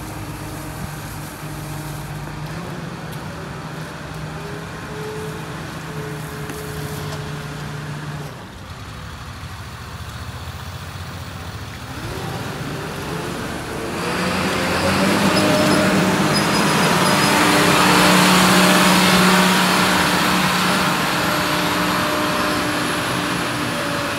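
Hagie STS self-propelled sprayer's diesel engine running as the machine moves, its pitch stepping and then rising about halfway as it revs up. From then on it runs louder, with a strong rushing fan-like noise.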